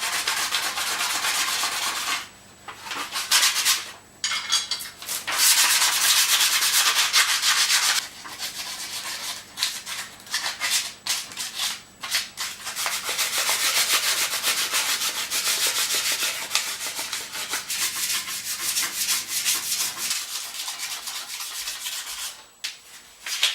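220-grit sandpaper rubbed by hand over rusty spots on a minibike's steel frame, scratching in quick back-and-forth strokes with a few short pauses, to key the metal for paint.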